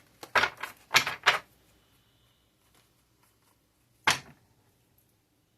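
Tarot cards being handled: short, sharp snaps and slaps of the cards, three close together in the first second and a half and one more about four seconds in.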